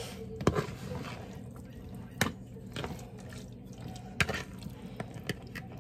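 Metal fork stirring seasoned raw diced chicken in a plastic bowl: wet squishing with sharp clacks of the fork against the bowl every second or two.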